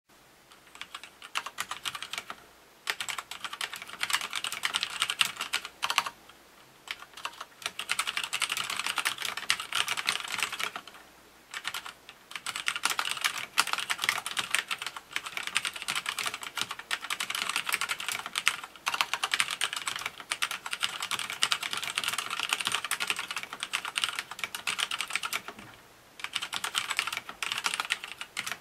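Typing on a SCORPIUS M10TFL tenkeyless mechanical keyboard with red linear switches: a fast, dense patter of keystrokes, broken by a few short pauses.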